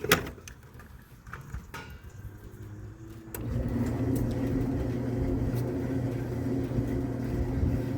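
Sharp knock at the start, then about three seconds in a click and an old Maytag top-load washing machine's motor starts and runs with a steady hum. The wash cycle has engaged after its pressure switch was tripped by blowing into the switch's hose.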